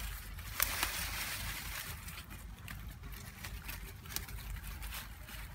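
Leaves and twigs rustling as a hand pushes through dense undergrowth, with a few sharp snaps: two just under a second in and one about four seconds in.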